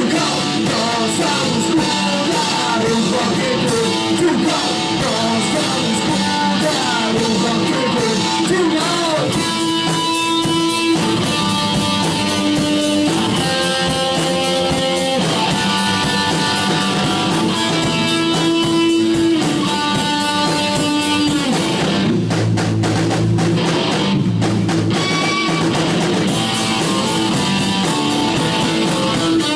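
Live rock band playing: electric guitar, bass guitar and drum kit, with a man singing through roughly the first third, then an instrumental stretch of held guitar notes over bass and drums.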